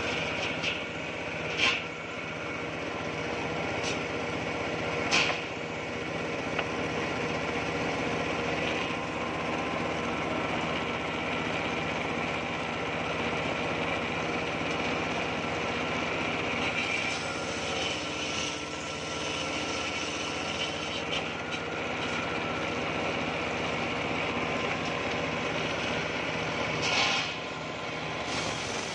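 Homemade circular saw bench with a large blade running steadily while ripping coconut-wood boards. It makes a constant machine drone with a cutting whine over it, and a few brief louder, sharper noises about 2 and 5 seconds in and again near the end.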